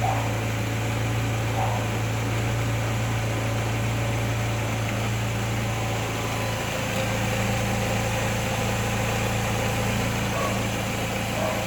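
Car engine idling steadily, an even low hum without stumbles or changes in speed.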